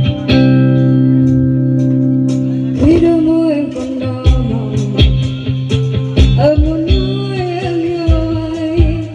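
A young woman sings a Vietnamese pop ballad into a microphone over a live band of electronic keyboards and electric bass with a steady drum beat. The band plays alone for about the first three seconds before her voice comes in.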